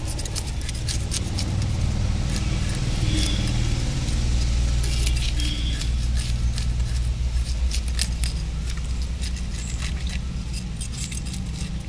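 A knife blade scraping the scales off a tilapia on a wooden block: a quick, irregular run of sharp scratchy clicks. A low rumble runs underneath, strongest through the middle.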